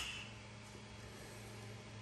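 A single short click of plastic parts right at the start, as the spool's axle screw is seated in the hole of a 3D-printed spool-holder stand, followed by faint room tone with a low steady hum.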